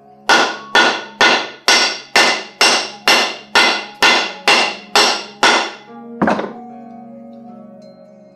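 About a dozen hammer blows, roughly two a second, followed by one lighter blow, on a new wooden axe handle. The blows drive the double-bit axe head down onto the handle's shoulder to seat it in its final position.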